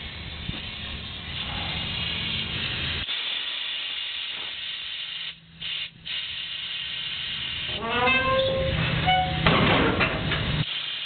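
Pneumatic dump-bed lift system: compressed air hissing through the valves and lines of the air cylinders over a low hum. About eight seconds in there is a rising whistle, followed by a louder burst of hiss, and the hum then cuts off.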